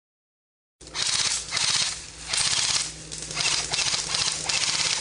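Airsoft guns firing full-auto in a string of short rapid bursts, each about half a second long, starting just under a second in after a moment of silence.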